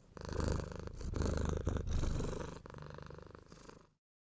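A low animal rumble made of fast, even pulses, lasting about four seconds.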